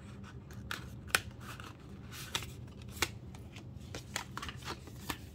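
Photocards and album packaging being handled: irregular light clicks, taps and rustles, with sharper snaps about a second in and about three seconds in, over a low steady hum.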